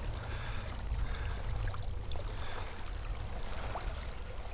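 Shallow lake water lapping and trickling around a person kneeling in it, with a few faint small splashes and a steady low rumble underneath.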